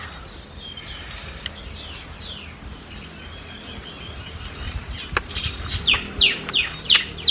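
Small bird calling: a string of short chirps that drop in pitch, coming in quick succession and louder over the last two seconds.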